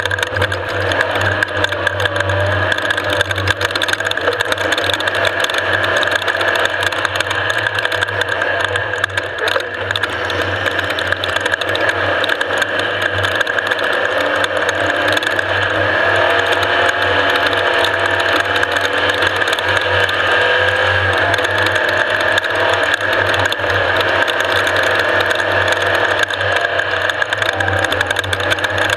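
Off-road race vehicle's engine running steadily at speed, with continuous mechanical rattling.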